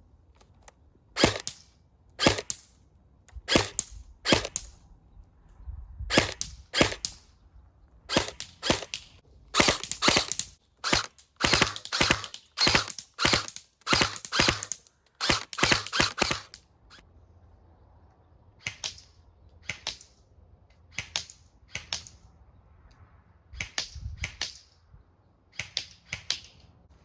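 Airsoft gun firing a long string of sharp single shots. They come quickly and irregularly at first, then more spaced out after a pause of about two seconds a little over halfway through.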